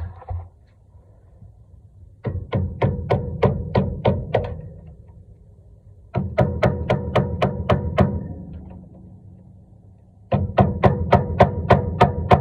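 Three runs of quick hammer blows on metal, about five strikes a second, each run ringing on and fading after the last blow.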